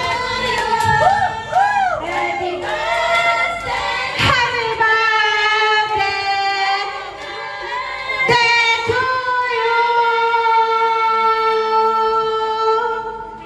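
A woman singing, with quick wavering runs about a second in and a long held note from about eight seconds in.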